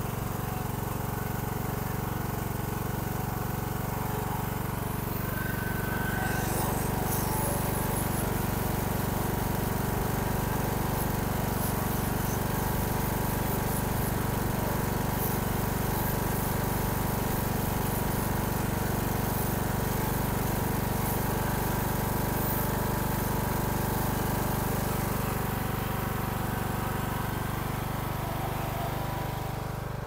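Craftsman riding mower's engine running steadily, a little louder from about six seconds in and easing slightly near the end. It is being run to warm the oil before an oil change.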